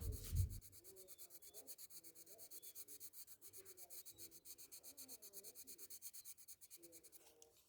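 Colour pencil scribbling back and forth on a colouring-book page: a faint, quick, even rubbing scratch of several strokes a second. A low thump right at the start.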